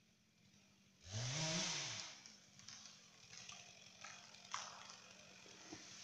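A chainsaw revs up and back down for about a second, then several faint cracks and snaps of wood as the cut tree begins to tip over.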